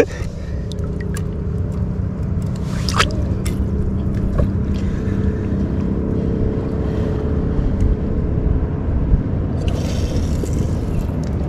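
A steady low motor drone on a constant pitch, with a few small knocks close by.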